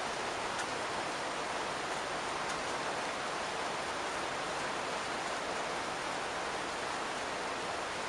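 Rain falling on a house roof that is not metal, heard from inside the attic directly beneath it: a steady, even hiss of rain, with a couple of faint single drop ticks in the first few seconds.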